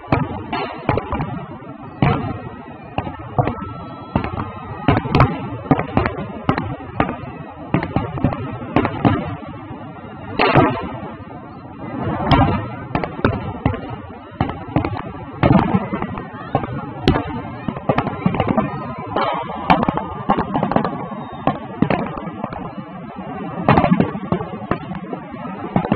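Aerial fireworks shells bursting overhead: irregular sharp bangs, sometimes single and sometimes several in quick succession, over a constant crackle.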